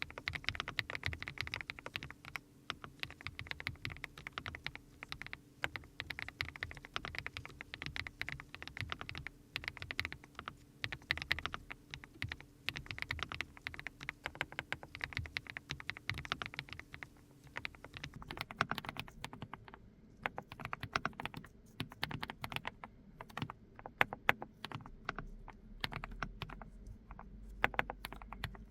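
Continuous typing on a GX87 SE aluminium custom mechanical keyboard with Mist Blue switches, a steady run of keystrokes. About two-thirds of the way through, the recording switches from a dynamic microphone to a smartphone microphone, and the keystrokes lose much of their high end.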